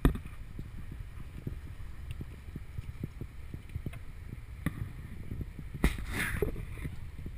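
Low wind noise on the microphone over the rush of a fast river, with scattered small knocks of camera handling. There is a sharp knock at the start and a brief louder noise about six seconds in.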